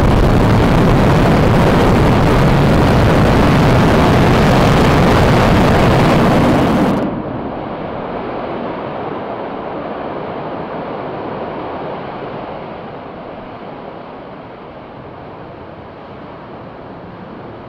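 Super Heavy Booster 11's 33 Raptor engines firing in a static fire: a loud, steady rumble. About seven seconds in it drops abruptly to a duller, quieter rumble that fades away.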